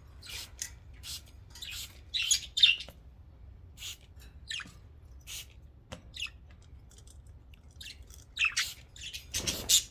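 Several pet budgerigars chirping and squawking in many short, high-pitched calls, some sliding down in pitch, with a louder squawk near the end.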